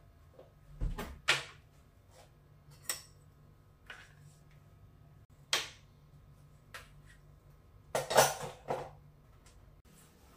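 Knocks and clatters of household objects being handled: a handful of separate sharp bumps, with the loudest cluster about eight seconds in, over a faint low steady hum.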